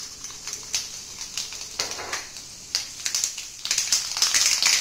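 Black mustard seeds popping and crackling in hot oil in a steel kadhai: scattered pops at first, thickening into a dense sizzle about three and a half seconds in. The spluttering shows the oil is hot enough for the tempering.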